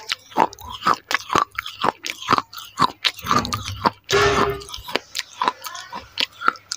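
Pieces of a broken clay saucer being chewed right at a lavalier microphone: rapid sharp crunches and crackles, with a longer grinding crunch about four seconds in.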